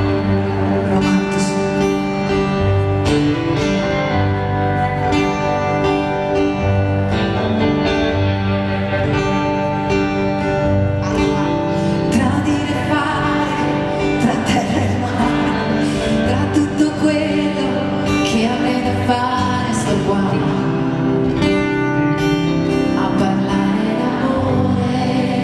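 Live pop band music: electric guitar and acoustic guitar playing together over a steady bass pulse, with a woman singing.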